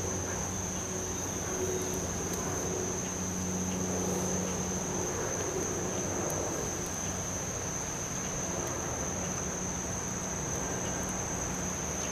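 Steady, high-pitched insect chorus, typical of crickets singing, over a low steady hum.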